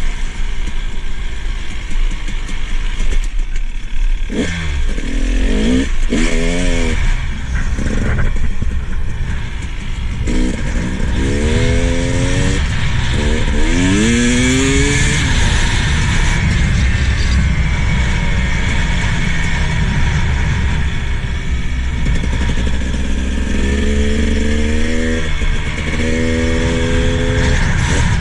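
KTM 300 XC-W TPI single-cylinder two-stroke dirt bike engine revving up through the gears while riding, its pitch climbing and then dropping at each shift several times. Heavy wind rumble sits underneath.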